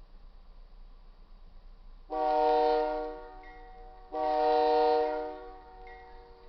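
Two long blasts of a diesel locomotive's multi-chime air horn, the lead unit a GE AC4400CW. Each blast lasts about a second and a half. Two long blasts are the standard signal that the train is releasing its brakes and about to proceed.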